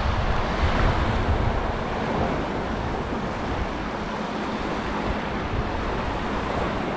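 Gulf surf washing in over a shallow beach, a steady wash of small breaking waves, with wind rumbling on the microphone.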